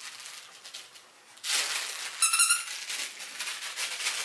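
A five-week-old puppy gives a short, high, wavering squeal about two seconds in, over the rustle of puppies scrambling on quilted bedding that starts just before it.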